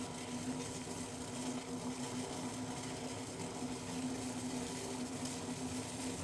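A steady low mechanical hum with a faint even hiss underneath.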